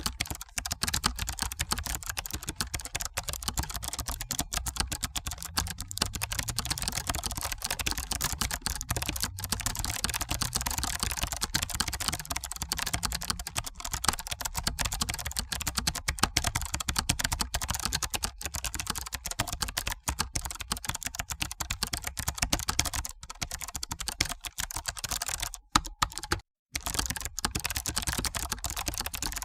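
Continuous fast typing on a computer keyboard, a dense stream of key clicks, broken by a brief silent gap near the end.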